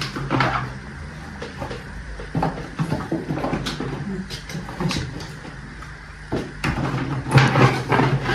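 Green peppers being packed by hand into a plastic pickling jar: irregular rustling, squeaks and knocks of peppers against the plastic, busiest and loudest about seven seconds in, over a steady low hum.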